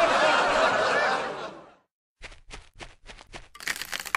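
A crowd of voices laughing, fading out after about a second and a half. After a short silence come a string of sharp light clicks and a brief rasping scrape.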